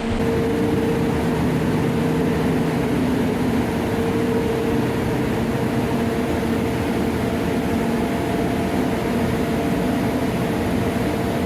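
Sludge thickening and dewatering machinery running steadily: an even mechanical drone with a steady hum tone and no change in pace.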